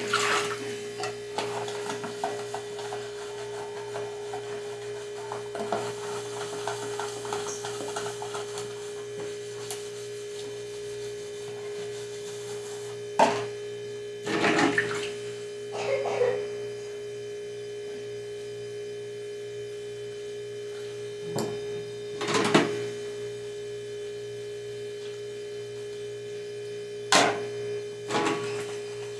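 Plastic food containers and their snap-on lids knocking and clacking against a kitchen counter as they are handled: several sharp clacks, mostly in pairs. A steady high hum runs underneath.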